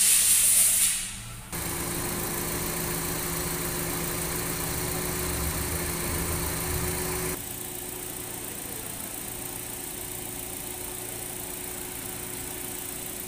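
Nissan Evalia engine idling steadily with the hood up. A loud hiss fills the first second or so before the engine sound sets in.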